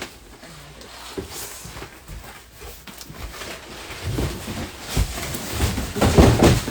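A large cardboard box and its packing being handled and opened: irregular rustling, crackling and scraping, growing busier and louder over the last few seconds.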